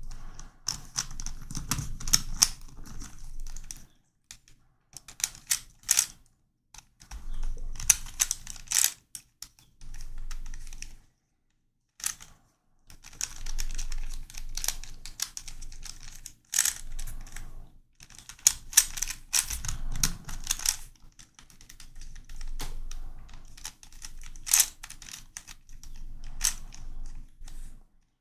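Plastic clicking and clacking from a non-magnetic YuXin Corner Helicopter 2x2 puzzle being turned by hand. It comes in runs of rapid moves broken by brief pauses.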